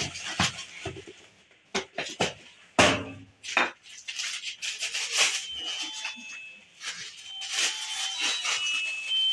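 Clear plastic packing bag rustling and crinkling as a pair of rubber slippers is packed into it. In the first few seconds there are several sharp knocks as a cardboard shoe box is handled.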